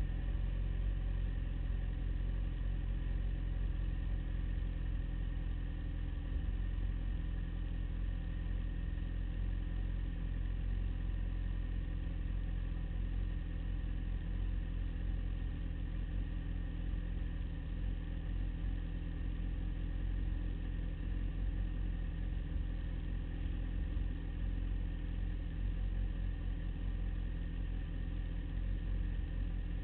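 Sport motorcycle engine idling steadily, heard from a camera mounted on the bike itself.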